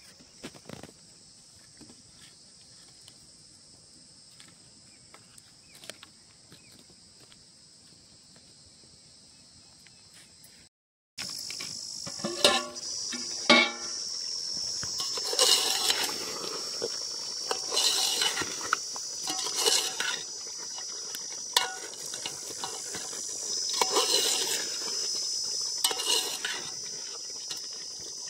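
Insects trilling steadily in the field. About halfway through, metal clanks twice against an aluminium cooking pot, then a long metal ladle scrapes and stirs thick mutton masala in the pot in strokes about every two seconds.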